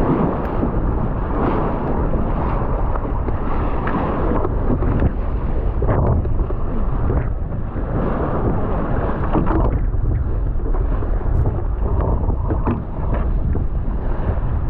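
Wind buffeting the microphone on a small sailing boat under way, with water rushing and splashing along the hull.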